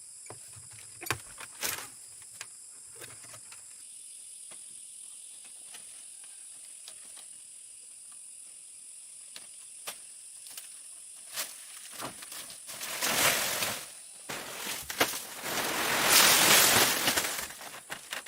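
Insects trilling steadily in the background, with scattered light knocks and clicks. Two louder rushes of noise come near the end, the second lasting a couple of seconds.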